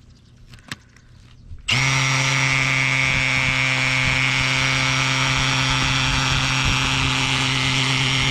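Cordless electric drill starting suddenly about two seconds in and running at a steady speed with a steady whine, driving a screw-threaded tent peg clockwise into decomposed-granite soil; the peg is going in smoothly.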